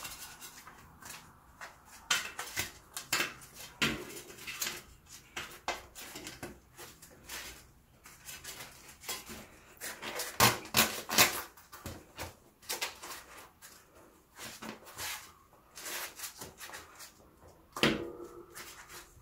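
Bicycle tyre bead being worked onto the wheel rim by hand in work gloves: irregular rubbing and scuffing of rubber against the rim, with scattered clicks and a sharper knock near the end.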